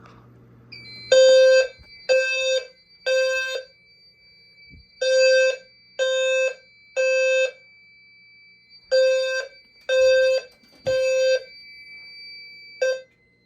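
Fire alarm horns sounding the temporal-3 evacuation pattern: three low beeps, a pause, then three more, three times over, with a steady high-pitched tone running underneath. A short fourth set starts and is cut off shortly before the end, as the system is silenced.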